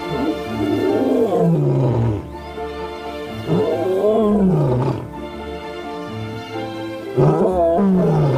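A young male lion roaring three times, each long call sliding down in pitch, the last one shorter, over background music with held notes.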